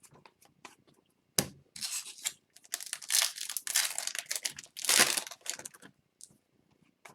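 Hockey card pack wrapper being torn open and crinkled: a sharp snap about a second and a half in, then a few seconds of tearing and crackling.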